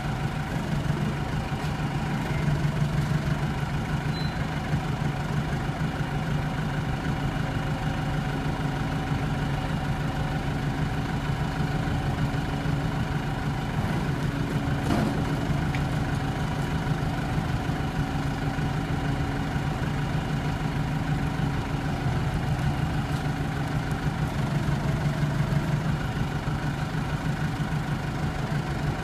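Engine running steadily at idle, a constant low hum, with one brief click about halfway through.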